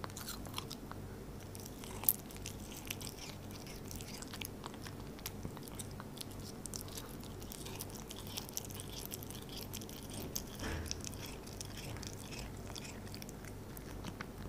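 A Devon Rex cat biting and chewing a piece of raw venison held in a person's fingers, making many small mouth clicks, one louder click about two seconds in.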